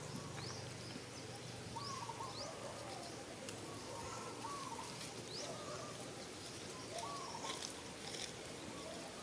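Background birdsong: one bird's short calls repeating every second or two, with brief rising chirps from another bird higher up.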